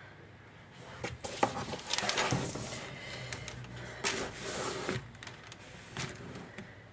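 A large sketchbook being handled on a wooden table: paper rustling and rubbing, with a few sharp knocks and clicks, from about a second in until about five seconds in.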